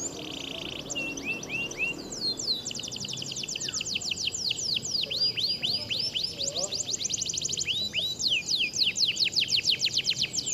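Canaries singing in fast rolling trills of quick, sweeping notes, many a second. The song gets louder and denser in the second half.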